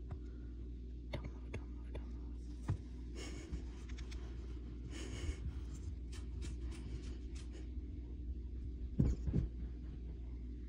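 Quiet room with a steady low hum, soft whispering twice, a few faint clicks, and a short low thump about nine seconds in.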